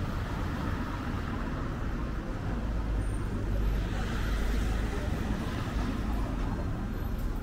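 Street traffic noise: a road vehicle's low engine rumble, growing louder around the middle as it passes.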